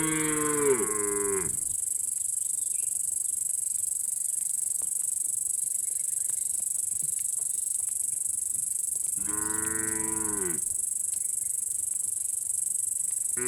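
Cattle mooing: one drawn-out moo ends about a second and a half in, and another comes about ten seconds in, each dropping in pitch as it ends. A steady high-pitched buzz runs underneath throughout.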